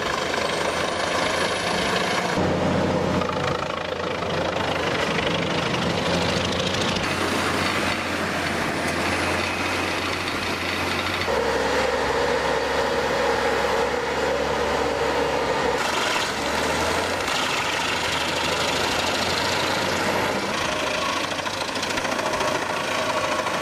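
Large diesel-powered wood grinder running under load, with a steady heavy engine note and machine noise. The sound changes abruptly several times, every few seconds.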